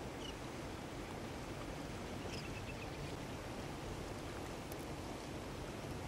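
Steady outdoor rumble and hiss with faint bird calls: a single short note near the start and a quick run of about five short notes a little over two seconds in.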